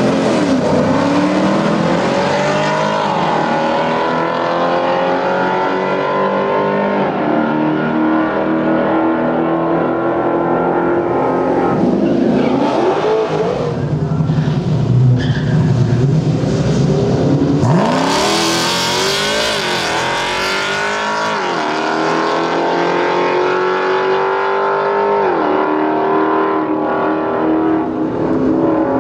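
Modern Hemi V8 drag cars accelerating hard down the strip. The engine note climbs through each gear and drops sharply at every upshift, and a new launch starts about halfway through. A burst of harsh noise comes about two thirds of the way in.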